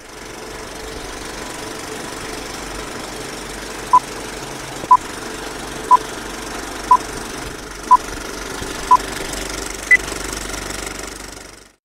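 Film projector clatter running steadily, the sound effect of a film countdown leader, with six short beeps one second apart and then a single higher-pitched beep, before the whole sound cuts off suddenly near the end.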